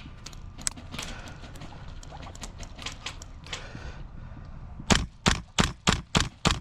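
Airsoft gun firing a quick string of loud single shots, about three a second, starting about five seconds in. Before that, only faint scattered clicks and rustling.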